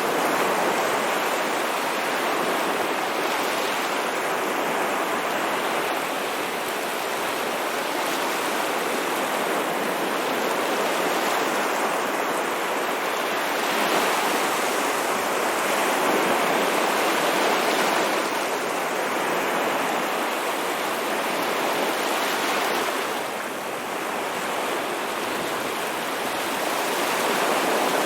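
Sea waves washing in as a continuous rush of surf that swells and eases every few seconds.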